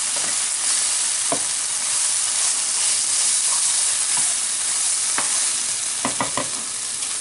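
Beef bolognese sauce with sliced onions sizzling hard in a square copper-coloured frying pan as it cooks down to thicken: a steady, loud hiss. It is stirred with a black utensil, which clicks against the pan a few times, in a quick cluster near the end.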